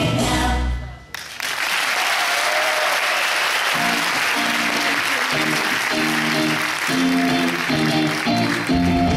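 Audience applause breaks out as the music stops about a second in. Recorded music starts up again under the clapping a few seconds later and is back at full volume near the end.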